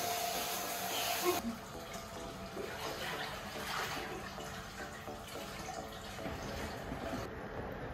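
Hot-spring water pouring from a spout into a stone bath, a steady rushing hiss that cuts off about a second and a half in. A quieter, faint background follows.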